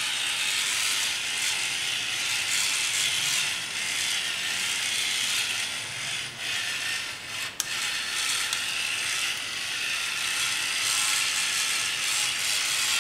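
Battery-powered electric pepper mill grinding in a long, steady whir, with a short dip and a click about halfway through. Its batteries are weak.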